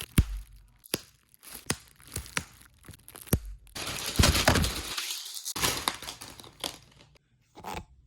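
Figure packaging being handled and opened: scattered sharp clicks and crinkles of plastic and card, then a longer stretch of tearing and rustling beginning about four seconds in.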